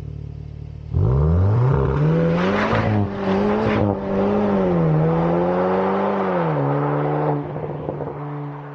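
Cupra Formentor with an asg valve-controlled sport exhaust setting off hard and accelerating away, the engine note rising quickly with short breaks at gear changes around two and three seconds in, then easing and fading as the car drives off.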